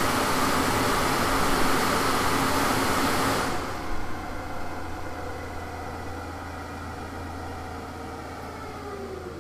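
Car coasting down on a chassis dynamometer's rollers with the clutch engaged after a full-power run. A loud, even rushing of tyres and rollers drops sharply about three and a half seconds in, leaving a quieter hum of the engine and drivetrain that falls steadily in pitch as the rollers slow.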